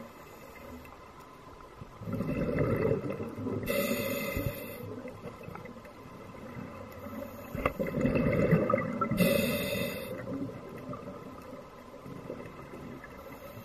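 A scuba diver breathing through a regulator underwater: two breaths about five seconds apart, each a gurgling rumble of bubbles with a short hiss.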